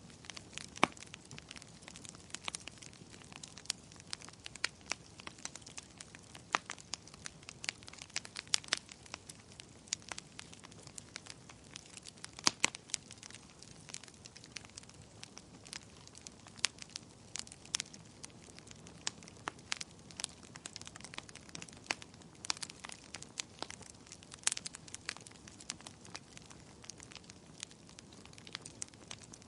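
Wood fire burning in a fireplace: irregular sharp crackles and pops, a few each second and some much louder than others, over a soft steady hiss.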